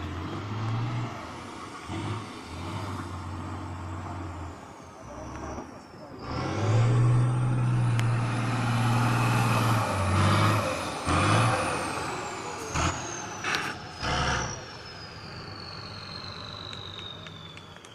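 Tatra trial truck's diesel engine labouring and revving hard as the truck climbs a loose sand hill, loudest from about six to eleven seconds in. A high whine then falls slowly in pitch, with a few short sharp bursts of hiss a little later.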